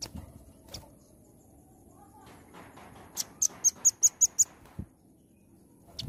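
Velvet-fronted nuthatch giving a quick burst of about eight sharp, high chips in a little over a second, past the middle, after two short clicks near the start.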